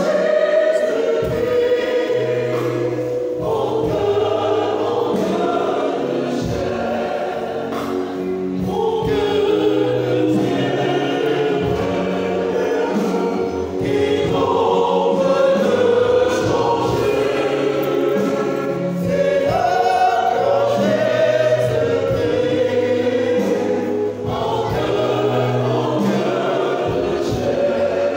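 Church choir singing a religious song in several voice parts, in long held phrases with short breaks about every five seconds.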